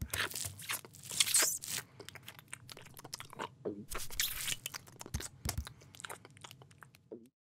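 Cartoon cat eating noises: greedy, irregular crunching and chewing as the cat gobbles food off a plate. The crunching comes in fits, busiest in the first two seconds and again around four seconds in.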